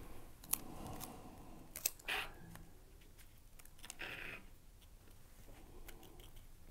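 Faint handling sounds of clear invisible tape being worked and pressed over a thin balsa wood spar on a paper-covered building board: scattered small clicks and two short rustles, about two and about four seconds in.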